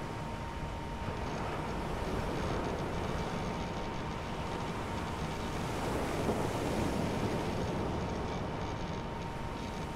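A steady rumbling noise drone, heaviest in the low end, with a thin constant high tone running through it and a slight swell about two thirds of the way in.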